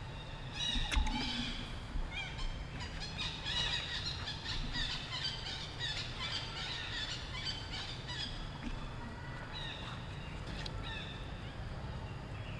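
Monkeys giving many short, high-pitched squeaks and chirps that overlap in a busy chorus, thinning out near the end.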